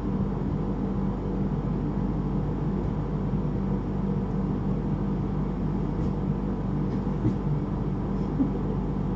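A steady low mechanical hum, with a few faint light clicks in the second half.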